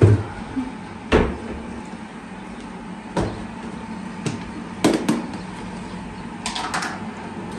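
Kitchen work: a series of separate knocks and clacks of cookware and utensils, a second or two apart, with two quick knocks near the middle and a short rattle near the end, over a steady low hum.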